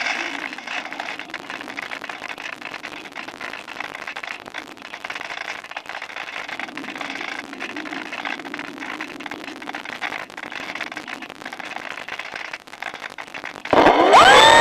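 A steady crackling, rushing noise. About a second before the end, the Cularis glider's electric motor and propeller start up suddenly and loudly, with a whine that rises in pitch and settles into a steady note.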